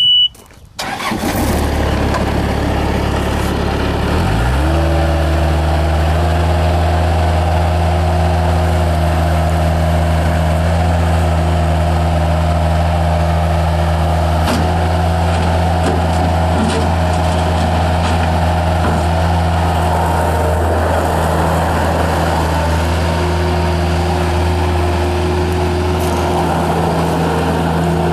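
Bobcat 753 skid steer's Kubota diesel cranking on the starter for a few seconds, catching about four seconds in with a quick rise in pitch, then running steadily.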